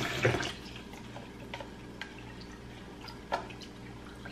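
Kitchen faucet stream running into the sink, shut off about half a second in. Then scattered drips and light clicks, with one sharper tap a little past three seconds in.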